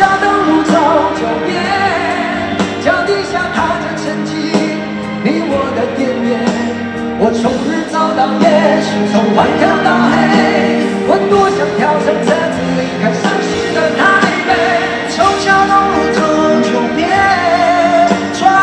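Live pop-rock song: male voices singing over acoustic and electric guitars with a full band.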